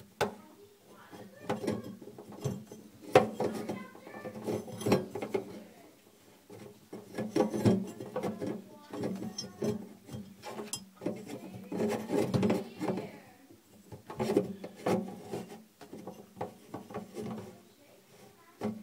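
Close handling clatter of a Waste King garbage disposal's metal mounting ring and rubber gasket being fitted by hand: many short clicks, knocks and rubbing sounds, with voices in the background.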